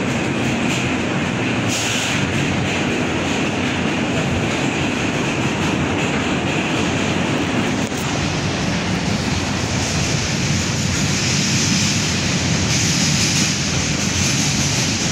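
R160A subway train running at speed, heard from inside the car: a steady, loud noise of wheels on rail and running gear. A brief dip comes about 8 seconds in, and a higher hiss swells for a few seconds past the middle.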